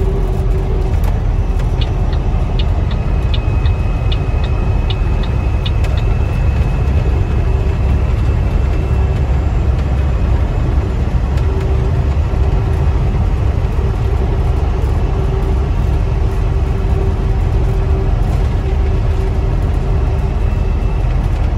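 Mack Titan semi truck's diesel engine and road noise at cruising speed, heard from inside the cab as a steady low rumble with a constant hum. A short run of quick, even ticks, about three a second, comes between about two and six seconds in.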